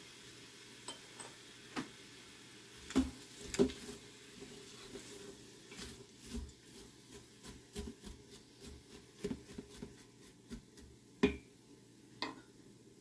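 A utensil stirring sliced onions in a stainless steel Instant Pot inner pot: scattered scrapes and knocks against the pot, with a few sharper knocks about three seconds in and again near the end.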